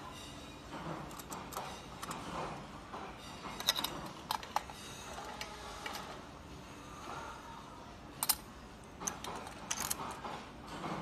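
Metal tube sections of a coat stand being screwed together by hand: scattered sharp clicks and clinks as the parts knock and the joint is twisted, the loudest about eight seconds in.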